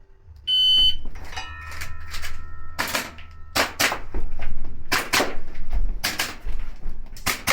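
Electronic shot-timer start beep about half a second in, then a fast string of shots from a Tokyo Marui Hi-Capa gas blowback airsoft pistol, with a ringing tone sounding over the first few shots.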